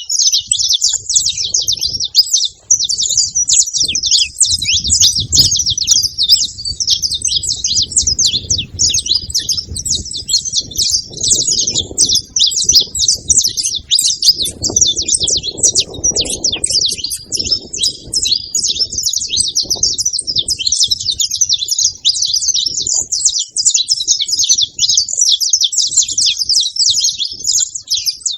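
Saffron finches chirping: a dense, unbroken chatter of quick high notes that never pauses.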